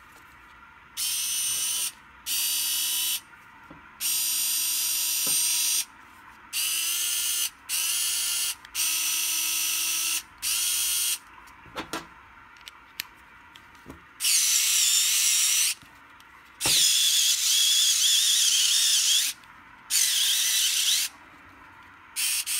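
JIGUOOR cordless electric screwdriver's small motor whining in about ten short bursts, switched on and off by its button, with a few clicks between runs in the middle; the later runs are louder.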